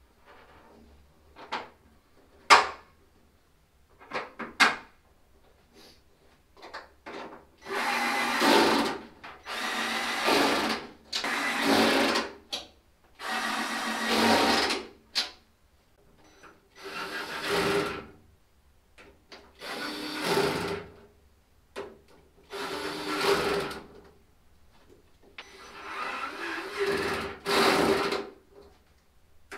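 Small cordless drill-driver run in about eight short bursts of one to two seconds each, driving in the bolts that fasten a rear wing and its end plates. A few sharp knocks of parts being handled come first.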